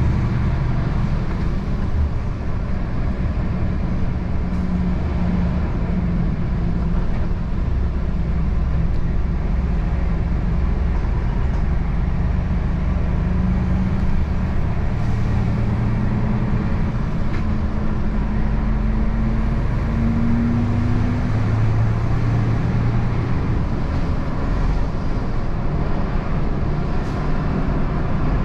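Truck engine running while driving, with steady road noise. The engine note climbs gradually around the middle and then drops back.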